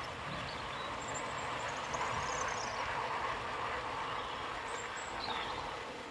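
00-scale model train running past on the track: the steady running noise of its wheels on the rails as a rake of Pullman coaches goes by, easing slightly near the end.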